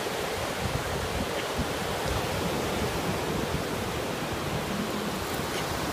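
Steady rushing noise with a fluttering low rumble.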